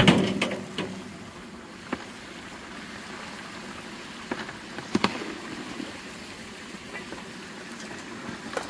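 Steady hissing noise with a few sharp clanks and knocks, the loudest cluster right at the start and single knocks about two, four and five seconds in and near the end.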